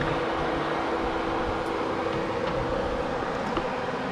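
Turbocharged Honda Civic engine idling steadily after a dyno pull, with an even hum.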